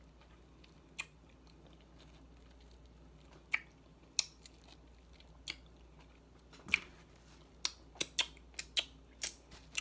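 A person chewing fruit, with sharp wet mouth clicks and smacks. They come a few at a time at first, then more quickly near the end.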